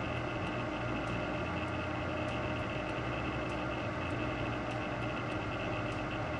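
Ceramic space heater running on its maximum setting: a steady fan whir with a faint steady hum.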